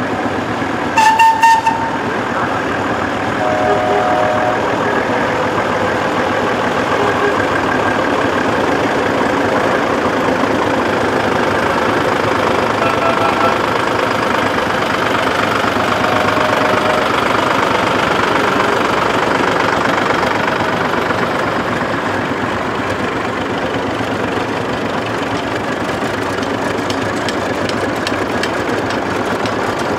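Vintage tractor diesel engines running steadily as the tractors drive past one after another. A short, loud hoot comes about a second in.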